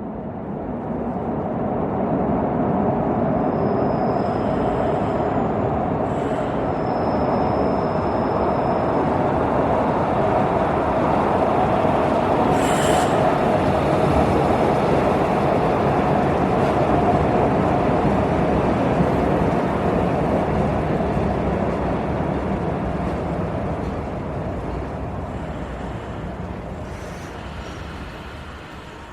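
Subway train running on its rails: a steady rumble that swells in over the first couple of seconds and fades over the last few. Two short high-pitched squeals come about four and seven seconds in, and a sharp metallic clink rings out near the middle.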